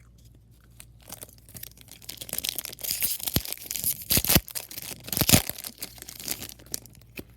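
A Yu-Gi-Oh! booster pack's foil wrapper being torn open and crinkled, with a few loud sharp rips in the middle.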